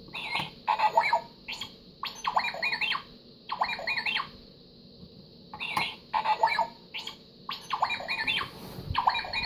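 Electronic sound effects from a Hasbro Star Wars Jedi Force Luke's X-wing toy, played through its small built-in speaker: a string of about ten short, warbling chirps and beeps with brief pauses between them.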